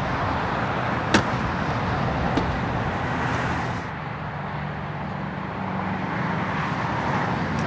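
Steady traffic noise from a nearby highway, with one sharp knock about a second in and a fainter one a little later.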